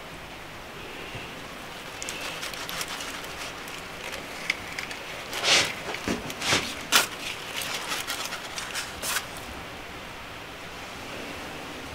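Knife cutting and scraping around the inside of a baked pumpkin: a run of short scrapes and clicks from about two seconds in until about nine seconds, loudest in the middle, over a steady hiss.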